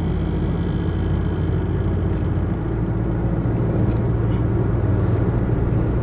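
Inside the cab of a Chevrolet S10 pickup cruising on the highway: steady engine and road noise with a low drone that grows a little stronger partway through. The drone is the growl the owner calls not normal; it is slight here at reduced revs.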